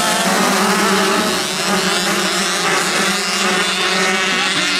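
Race car engines running at a fairly steady pitch.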